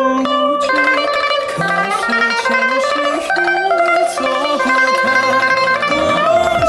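Pipa playing a melody in fast tremolo picking over a backing track, with a sweeping electronic effect coming in near the end.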